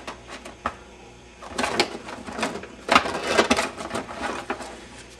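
Stiff paper setting cards for a card-type tube tester being leafed through by hand. A few light flicks come first, then a stretch of quick papery rustling and shuffling from about a second and a half in until near the end.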